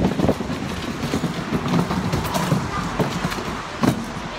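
Handling noise from a handheld camera carried while walking: irregular knocks and rubbing over a steady rushing background noise.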